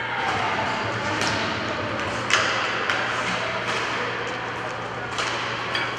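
Inline hockey play on a rink: a series of sharp knocks and clacks of sticks, puck and boards, the loudest about two and a half seconds in, over a steady background hum.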